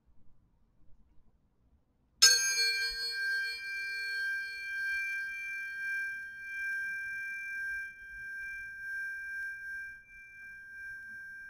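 A pair of Fibonacci-series tuning forks struck about two seconds in with a sharp metallic clink, then ringing as two steady high tones of different pitch that slowly fade.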